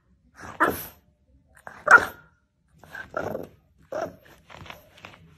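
French bulldog giving a string of short, separate barks, the loudest about two seconds in.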